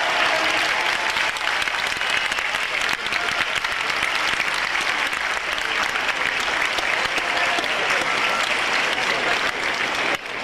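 Large arena crowd applauding steadily, a dense unbroken clapping, with faint voices underneath.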